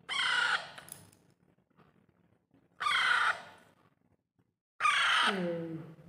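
Hand-fed parakeet chicks screeching three times, harsh and loud, the last call sliding down into a lower note: begging calls for more food.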